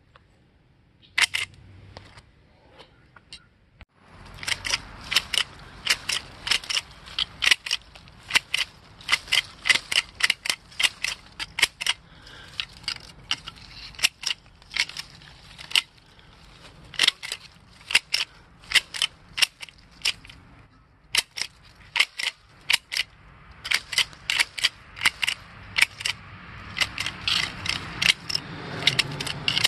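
Vintage Shear Magic three-blade grass and weed shears snipping grass, each squeeze of the handle closing the blades with a sharp click. After a single snip about a second in, the clicks run two or three a second, with a brief pause about two-thirds of the way through.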